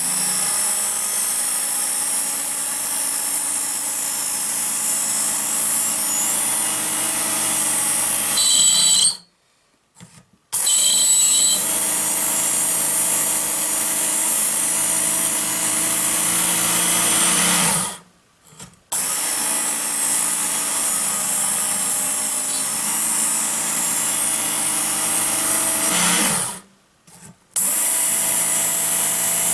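Work Sharp electric belt knife sharpener running steadily as a knife blade is drawn across its belt. The motor stops three times for about a second and starts again.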